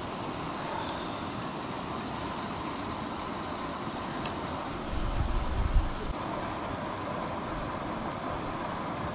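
Fish-pond paddlewheel aerator running: a steady churning of water with a faint steady tone, and a brief low rumble about five seconds in.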